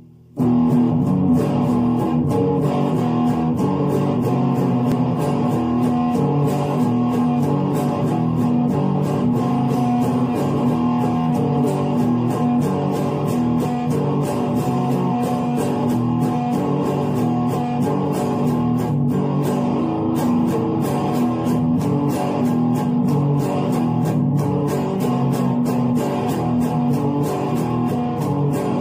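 Electric guitar playing an instrumental piece of held, overlapping notes over a steady low note. It starts suddenly about half a second in.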